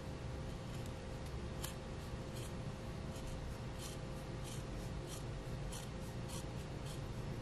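Small scissors snipping leather: a dozen or so faint, short, irregular snips as the uneven excess edge of a leather earring piece is trimmed away.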